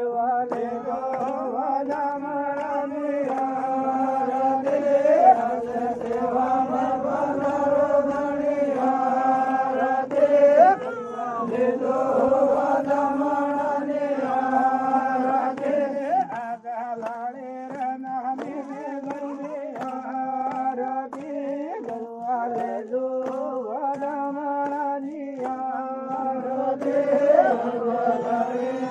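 Vagadi devotional bhajan, an aarti, sung in a chant-like style with long held notes.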